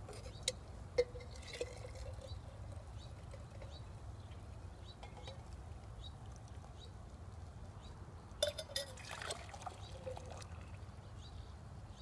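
Just-boiled water poured back and forth between a metal canteen and a steel camp cup, a thin trickling stream, to cool and aerate it. A few light sharp clicks come about half a second and a second in, and a quick cluster of them about eight and a half seconds in.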